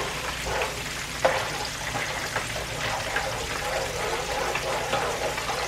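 Chicken wings sizzling in hot oil alongside a spoon stirring a thickening cheese sauce in a nonstick pan, with wet stirring strokes and an occasional light tick of the spoon.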